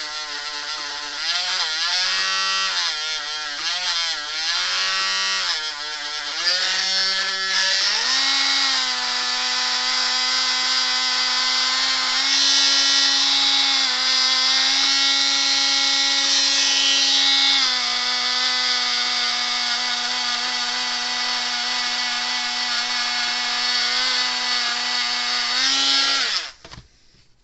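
A small high-speed electric power tool runs while cleaning burn damage off a fence energizer's burnt nut-and-washer contact. Its whine wavers and sags for the first several seconds as it is pressed into the work, then runs higher and steadier. It stops about a second before the end.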